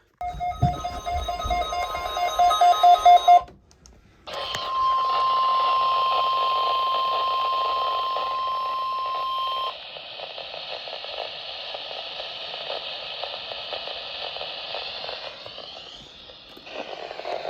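A NOAA weather radio receiver sounds a pulsing electronic alarm beep for about three seconds. After a brief gap comes a steady 1050 Hz weather-radio warning alarm tone lasting about five seconds, heard over radio static hiss. The tone cuts off abruptly and the static hiss continues.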